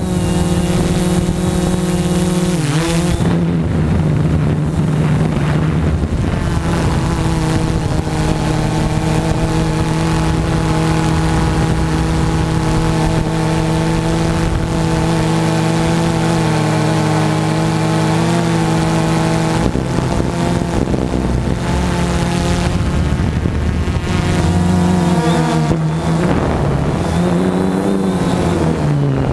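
Motor and propeller of a small radio-controlled aircraft, heard from its onboard camera: a steady, loud propeller drone whose pitch dips and recovers briefly about three seconds in and rises and falls with throttle changes near the end.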